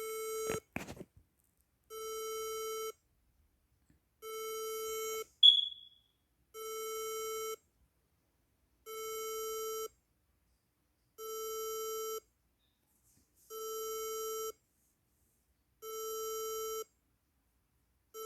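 Emergency alert alarm tone: a buzzy beep about a second long, repeating evenly about every two and a quarter seconds. A short sharp click a little after five seconds in is the loudest thing, with a softer click about a second in.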